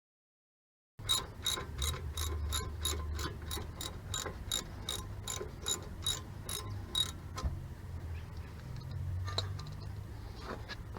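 Ratchet wrench being worked on a bolt, its pawl clicking evenly at about four clicks a second for some six seconds, then a few scattered clicks.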